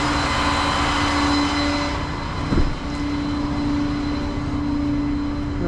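Vehicle engine running with a steady hum, under a rush of noise that swells and then fades over the first two seconds, and one brief knock about halfway through.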